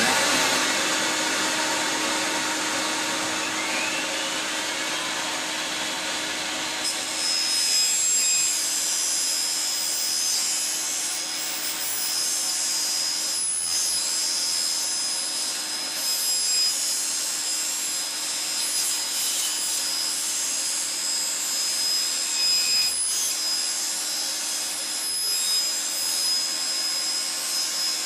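Table saw switched on and running steadily while its blade cuts through an LCD monitor's housing. A high, steady whine joins about seven seconds in as the blade works through the monitor.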